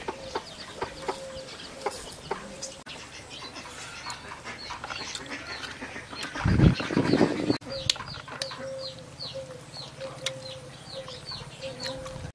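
Birds calling: short, high, falling chirps repeated two or three times a second through the second half, with a louder burst of noise about six and a half seconds in.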